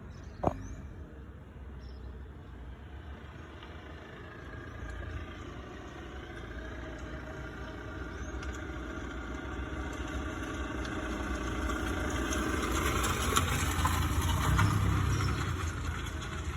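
A 2013 Fiat Grand Siena running, its engine and rumble growing louder through most of the stretch, with one sharp click about half a second in. The noise is put down to a broken spring.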